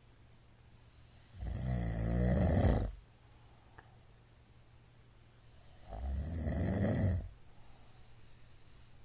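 A middle-aged man snoring in his sleep: two long, loud snores, each about a second and a half, some four and a half seconds apart, with soft breathing between.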